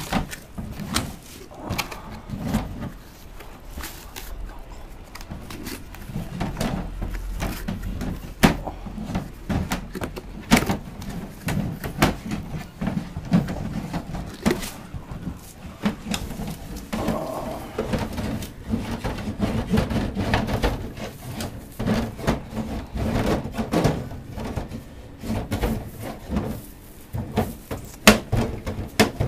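Goats moving about in straw and bumping a wooden crate: rustling with scattered wooden knocks and thumps all through.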